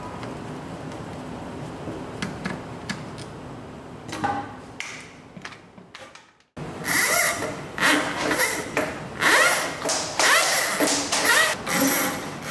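Faint clicks of a screwdriver turning screws out of a drain cleaner's plastic cable-drum cover. About halfway through, loud repeated scraping and rattling begins: the coiled steel drain cable drags and springs against the plastic cover, in bursts every half second to a second.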